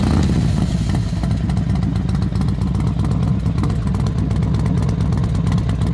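Motorcycle engine running loudly and steadily with a deep, rapid rumble.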